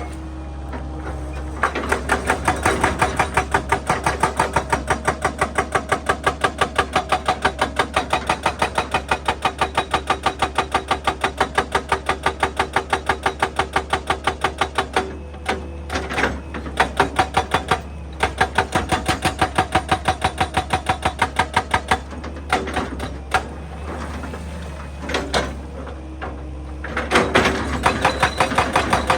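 Excavator-mounted hydraulic rock breaker hammering rock in a fast, even rhythm of about five blows a second over the steady hum of the engine. The hammering stops about halfway through, a few separate knocks follow, and it starts again near the end.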